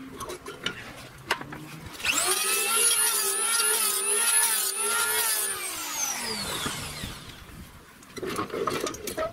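A few knocks as a board is set in a bench vise, then an electric hand planer starts up with a quick rising whine. It runs for about three and a half seconds on the board, then winds down in a long falling whine after it is switched off.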